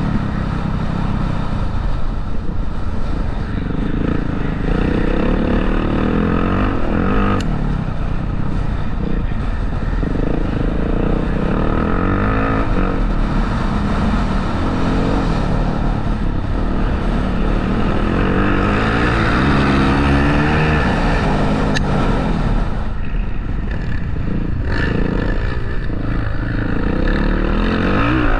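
Motocross bike engine revving up and easing off again and again, its pitch climbing and falling every couple of seconds over a heavy low rumble.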